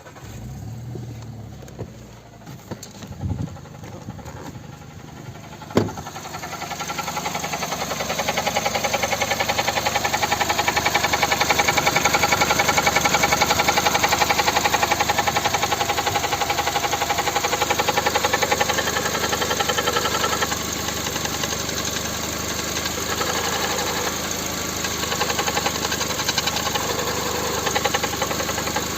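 VAG 1.6 MPI (BSE) four-cylinder petrol engine being started cold, with a few sharp clicks at first. It then runs steadily and louder from about six to eight seconds in, with the knock typical of this engine when cold.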